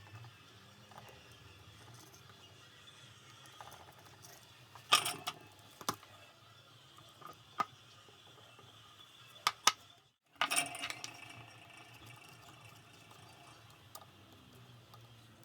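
A few sharp clicks and clinks of small hard objects being handled, loudest about five seconds in and again around ten seconds, over a low steady hum.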